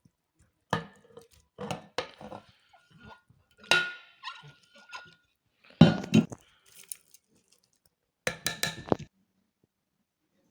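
Metal cookware and utensils knocking and clinking in a kitchen: a scattered series of sharp knocks, one leaving a metallic ring for about a second and a half, with the last cluster about eight to nine seconds in.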